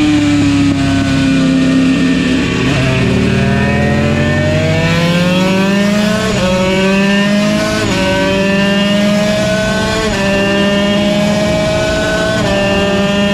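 Yamaha TZ125 single-cylinder two-stroke racing engine, first easing off with its pitch falling, then accelerating hard. It climbs in pitch through four quick upshifts, about two seconds apart.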